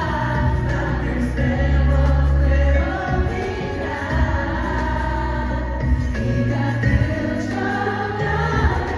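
Live pop ballad: sung vocals over a backing track with deep sustained bass notes.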